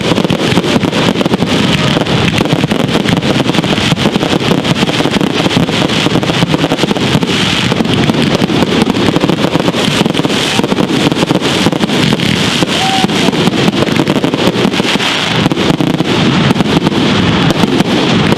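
Fireworks going off in a dense barrage, with bangs and crackling overlapping so closely that they merge into a continuous rumble.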